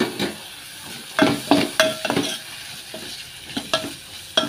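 Steel ladle stirring chopped tomato and onion frying in oil in a metal pot: a steady sizzle with repeated ringing clinks and scrapes of the ladle against the pot, several in a row about a second in and more near the end.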